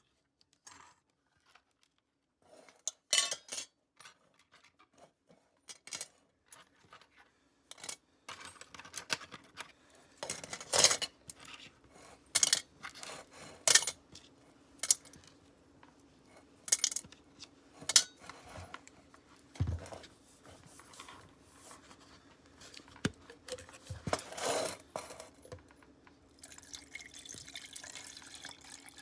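Scattered clinks and knocks of small hard objects being handled, some sharp and loud, over a faint steady hum. Near the end, water starts running steadily, as from a tap.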